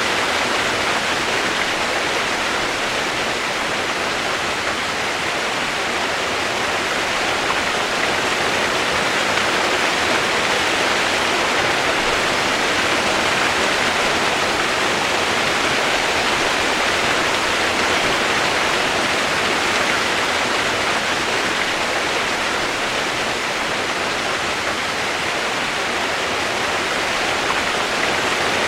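Steady rain as a relaxation white-noise track: a constant, even hiss with no single drops or breaks standing out.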